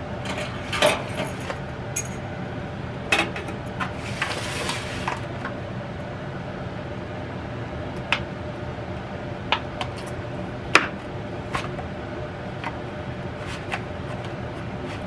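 A kitchen knife cutting cooked ribs apart in a disposable aluminium foil pan: scattered clicks and taps of the blade on foil and bone, with a short crinkle of foil about four seconds in. A steady low hum runs underneath.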